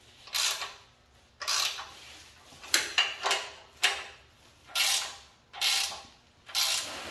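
Socket ratchet wrench worked in repeated strokes, about eight short bursts of clicking roughly a second apart, tightening the bolts on the heat exchanger's mounting bracket.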